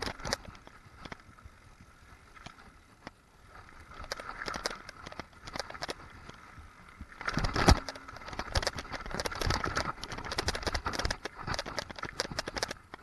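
Vitus hardtail mountain bike clattering and rattling as it rides down a rough dirt and gravel trail, with a rapid run of knocks and jolts. It is calmer for a moment early on, then picks up again, with the loudest hard knock just past halfway.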